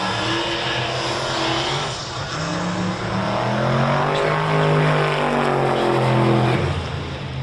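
Race car engine at full throttle during a drag-strip run, its pitch climbing and then falling away over several seconds.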